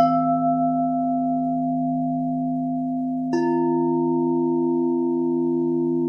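Singing bowls ringing: one is struck right at the start and a second about three seconds later, each sustaining a long ring over a steady low hum from another bowl.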